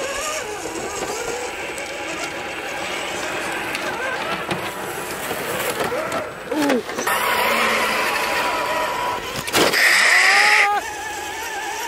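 An RC4WD Gelande II Defender 90 1/10 crawler's electronic engine sound module plays a simulated engine note that rises and falls with the throttle. A sharp knock comes about two seconds before the end.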